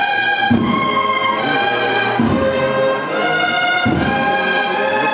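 Procession band playing a slow processional march: held brass chords that move from note to note, with a low drum beat about every second and a half.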